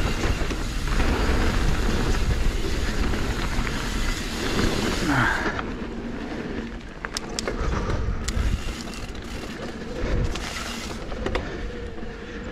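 A YT Decoy electric mountain bike ridden along a dirt trail: a steady rumble and hiss of tyres and wind on the microphone, with the bike rattling and a few sharp clicks in the middle.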